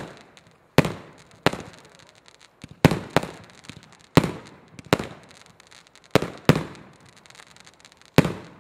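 Aerial fireworks shells bursting: a string of about nine sharp bangs at uneven intervals, some in quick pairs, each with a short echoing tail.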